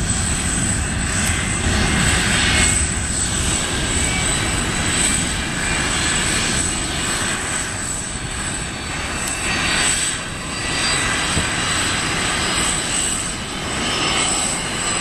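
Jet airliner taking off and climbing away: a steady, loud rumble of its engines at takeoff power, swelling and easing slightly.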